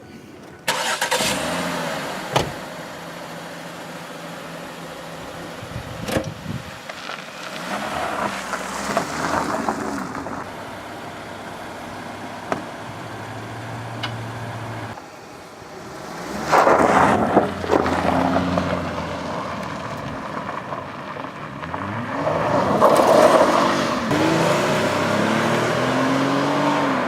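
A car engine running as the car drives, with sudden loud noisy stretches partway through and the engine note rising as it accelerates near the end.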